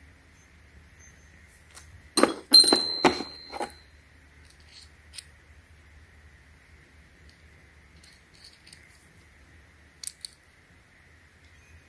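Metal parts of a hole saw set clinking together as they are handled: a quick cluster of sharp clinks about two seconds in, one of them ringing briefly, then two light clicks near the end.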